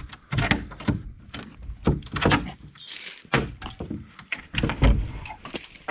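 Keys jangling, with irregular metallic clicks and knocks as a lock and door are handled.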